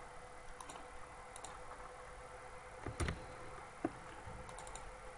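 Computer mouse clicking a few times over faint background noise with a steady hum, with one soft thump about three seconds in.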